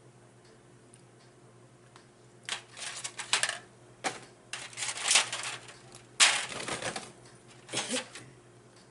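Crinkling and rustling of takeout food packaging handled close to the microphone, in irregular bursts of crackle starting a few seconds in.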